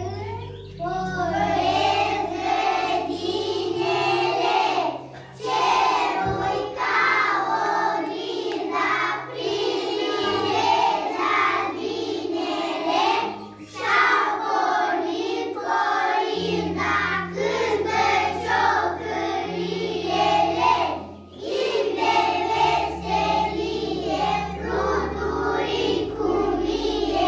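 A group of young children singing a song together over instrumental accompaniment with a steady low bass line, with short breaks between phrases.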